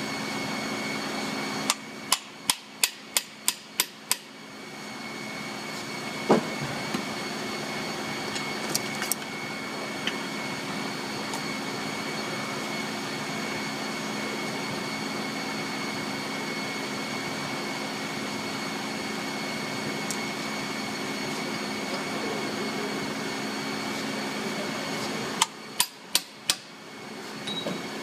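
Steady machine hum with a few fixed tones, broken by a quick run of about eight sharp taps a couple of seconds in, a single tap a few seconds later, and about four more taps near the end.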